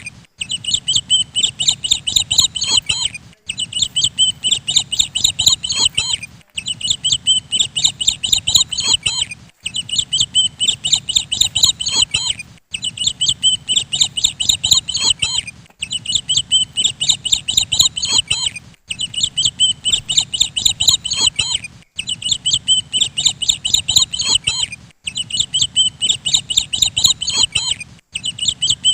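Looped birdsong track: rapid high chirping, the same three-second stretch repeating over and over with a brief break between repeats.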